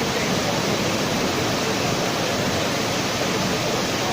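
Steady rushing noise of blast furnace plant machinery. It holds an even level throughout, with no distinct knocks or changes.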